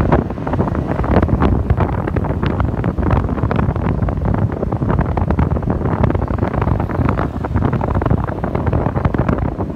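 Wind buffeting the microphone: a loud, steady rumble broken by frequent crackles.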